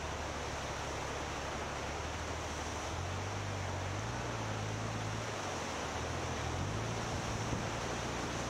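Steady rush of floodwater flowing across a low-water bridge and spilling over its edge. Underneath, the low hum of a Honda Gold Wing GL1800's flat-six engine at a slow ride, its pitch shifting up and down a few times.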